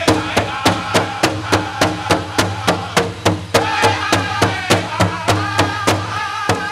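Pow wow drum group playing a prairie chicken dance song: a big drum struck in a fast, even beat by several drummers, with men's voices singing over it, the singing rising clearer about halfway in.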